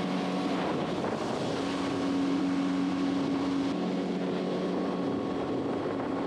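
A steady motor hum under wind rushing across the microphone.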